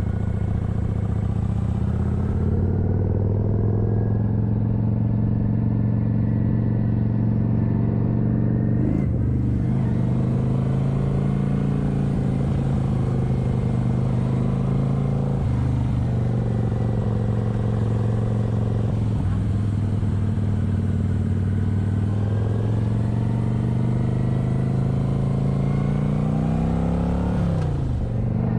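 Kawasaki Vulcan 900's V-twin engine running under way. Its note climbs as it pulls, then dips sharply and picks back up at a gear change near the end.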